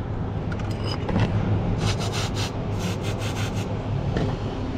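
Aerosol penetrant spray hissing in several short spurts onto rusted exhaust bolts, in two quick groups near the middle, over a steady low hum.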